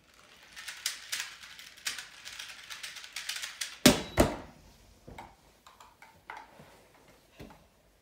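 Rapid clicking and rattling of a small two-by-two puzzle cube being turned fast in a speedsolve, then two loud sharp knocks about four seconds in as the finished cube is set down and the timer is hit, followed by a few lighter taps.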